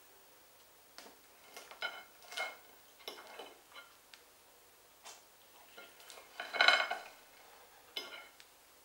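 Knife and fork cutting food on a dinner plate: a string of irregular scrapes and clinks of metal on the plate, the loudest and longest scrape about three-quarters of the way through.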